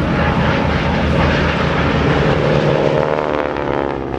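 Piston engine of a propeller-driven aircraft flying past, its engine note falling in pitch near the end as it goes by.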